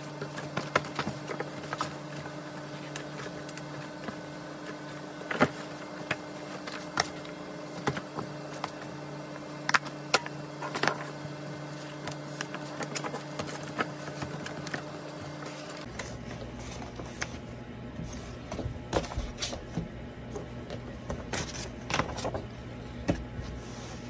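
Papers, brown envelopes and a book being handled and stacked on a desk: light rustling with many scattered taps and knocks. Underneath runs a steady hum whose tone changes about two-thirds of the way through.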